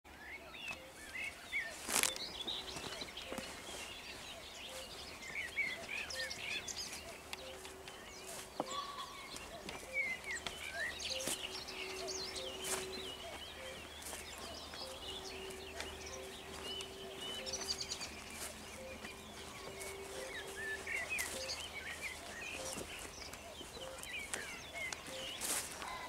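Dawn chorus of many songbirds chirping and singing over a meadow, with a faint low note repeating steadily about once a second. A few sharp clicks cut through, the loudest about two seconds in.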